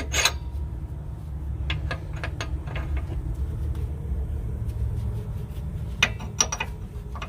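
Sharp metallic clicks and taps from tools and bolts being handled while a brake caliper is bolted back on, in a few small clusters, over a steady low engine-like rumble.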